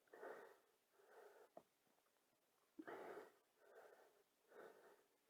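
Near silence with faint, soft breaths close to the microphone, several short puffs about a second apart.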